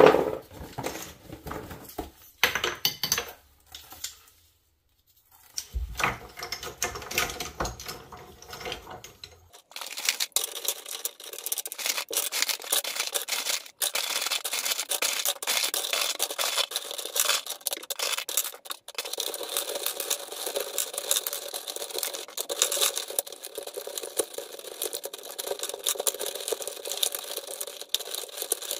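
Dense, rapid crackling and rustling made of many small clicks. A brief near-silent gap comes about four seconds in, and from about ten seconds in the crackle continues without its low rumble.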